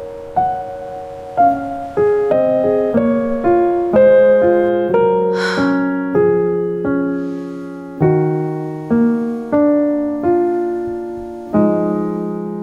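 Background music: soft solo piano playing a slow melody over sustained chords, each note struck and fading. A brief swelling whoosh rises and falls about five seconds in.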